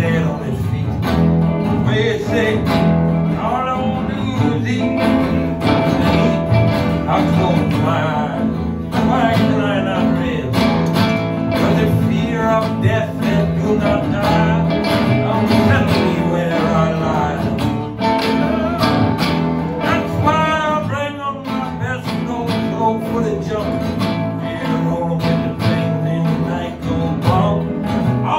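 Live music: a guitar-led band playing a song, with pitched melodic lines sliding up and down over a steady low end.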